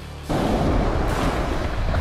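Background music stops abruptly, and the sound cuts to loud wind noise buffeting the camera microphone: a dense, low rumbling rush that stays strong.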